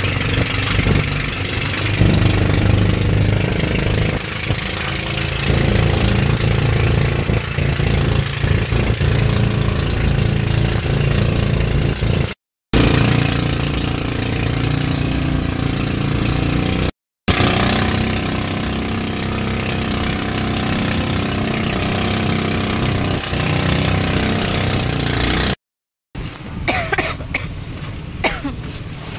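Outrigger boat's engine running steadily under way, with wind and water hiss, cut off briefly three times. Near the end it gives way to waves washing onto the shore.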